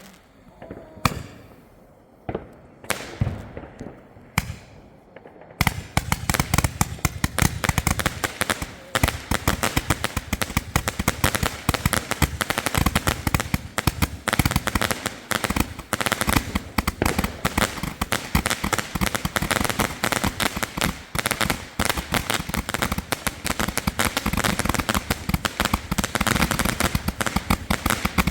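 Fireworks going off: a few separate bangs, then, about five and a half seconds in, a continuous rapid rattle of cracks and bangs that keeps going.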